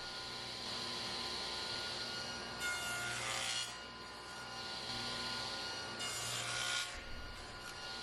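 Table saw running with a steady hum. Twice, about two and a half seconds in and again about six seconds in, a louder rasp of about a second as the blade cuts spline slots through a wooden picture-frame corner held in the spline jig.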